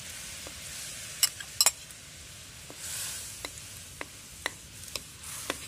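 A metal spoon clinks and scrapes against a metal pan while stirring jackfruit jam into hot, bubbling jaggery syrup, over a steady sizzle. The sharpest clinks come a little over a second in, followed by lighter taps every half second or so.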